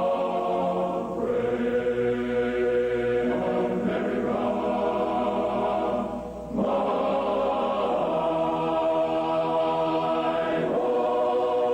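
Slow, solemn choral-style music: long held chords of massed voices that shift every few seconds, dipping briefly near the middle.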